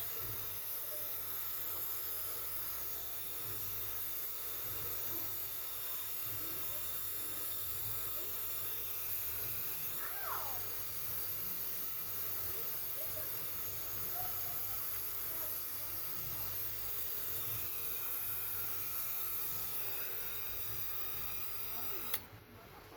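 A steady high-pitched hiss that cuts off suddenly near the end.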